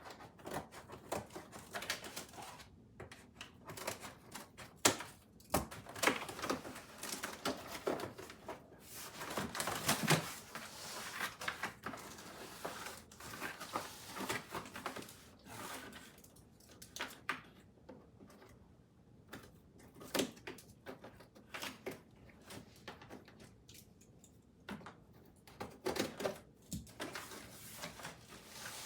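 Cardboard lamp box and packaging being pried open and handled: irregular clicks, taps, rustles and scrapes, with louder bunches of scraping now and then.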